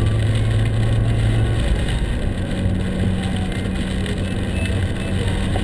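Mini Cooper heard from inside the cabin while driving on a wet road: steady engine drone over a constant hiss of tyres on wet pavement. About a second and a half in, the low engine hum drops away, and a second later a higher steady engine tone takes over.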